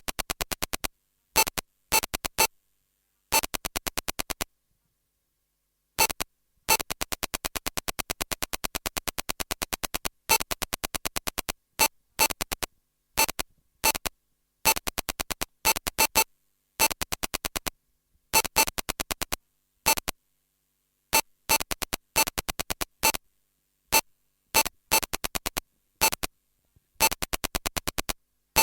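Electronic signal of rapid, harsh clicking pulses, about ten a second, coming in irregular short and long bursts broken by sudden silences, like an unidentified electromagnetic transmission.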